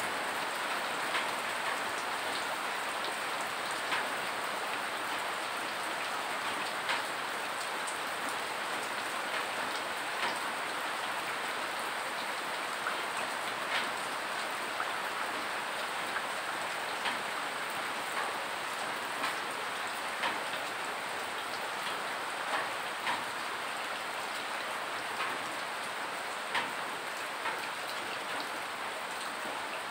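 Steady rain falling, with separate sharp drips of rainwater landing close by at irregular intervals, roughly one every second or two.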